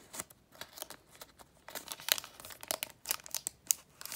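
Foil wrapper of a Pokémon TCG Battle Styles booster pack crinkling as it is handled before opening: a quick run of sharp crackles, thickest about halfway through.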